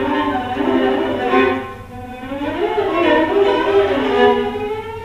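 Viola playing sustained bowed notes with sliding pitch glides, dipping briefly about two seconds in.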